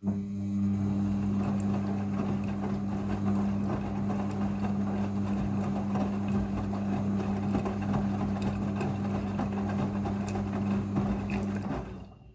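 Midea front-loading washing machine running a steady electric hum over a rushing noise during the rinse cycle. The hum starts suddenly and cuts off near the end.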